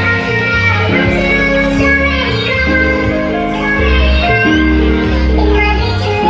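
Loud pop or dangdut-style music played through the Ugra Tani Audio carnival sound system: heavy, booming bass notes changing about every second and a half under sustained chords, with a singing voice above.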